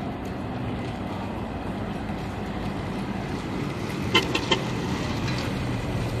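Steady city traffic noise with a low engine hum, and two quick car-horn toots about four seconds in.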